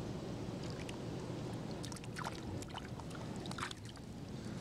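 Water splashing and trickling at the side of a canoe: scattered short splashes, thickest in the middle, over a steady low rumble.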